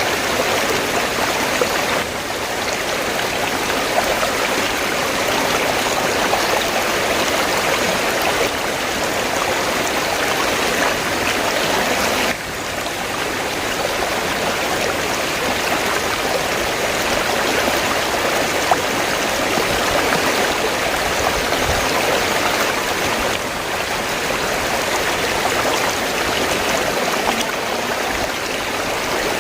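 River water flowing, a steady, dense rush of water that dips slightly in loudness a couple of times.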